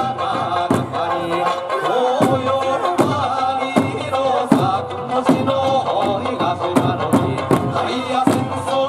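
Okinawan eisa music: a folk song sung over large barrel drums and small hand drums struck together on a regular beat, about one stroke every three quarters of a second.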